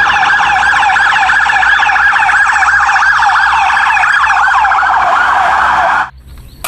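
Police siren wailing, with many overlapping rising-and-falling sweeps, loud and steady, cutting off suddenly about six seconds in.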